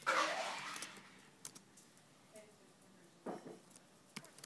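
A few scattered keystrokes on a laptop keyboard, with a brief loud rush of noise right at the start.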